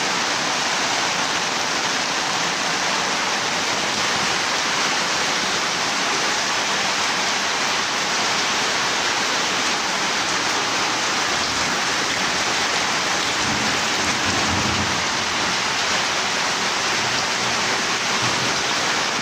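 Heavy downpour falling steadily onto the ground and onto muddy runoff water streaming across a yard: a loud, even hiss of rain.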